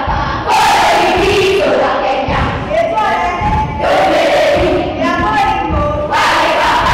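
A group of schoolchildren singing a song loudly together, many voices in unison.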